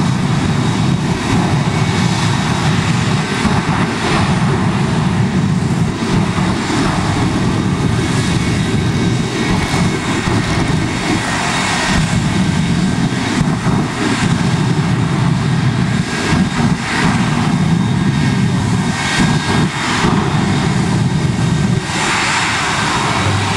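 Shockwave jet truck's jet engines running hard with afterburners lit: a loud, steady jet rush with repeated surges.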